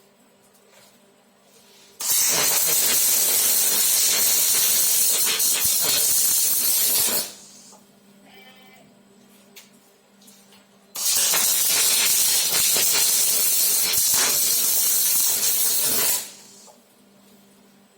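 Robot arc welding with a Fronius welding power source: two welds of about five seconds each, the arc hissing and crackling, starting and stopping abruptly.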